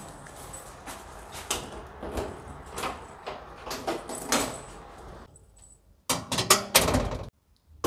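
Footsteps about every 0.7 s, then a loud rapid run of clicks and clanks as keys work a heavy deadbolt lock on a metal security door. The clanking cuts off suddenly.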